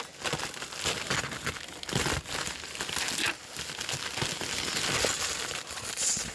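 Plastic packaging crinkling and rustling as an item is unwrapped by hand, a steady run of crackles with no pause.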